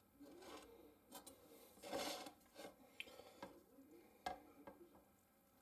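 Kitchen knife cutting a quesadilla on a metal plate: soft scrapes through the tortilla, the loudest about two seconds in, and a few sharp clicks of the blade against the plate.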